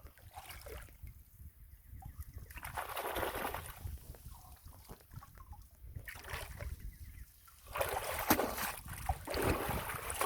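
River water splashing and sloshing in several bursts, the loudest near the end, over a steady low rumble.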